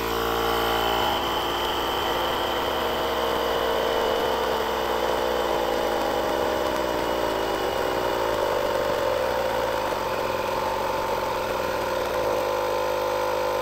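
AdoreTrip battery-powered portable air compressor running steadily, inflating a flat race tire from 0 PSI toward its 32 PSI set point.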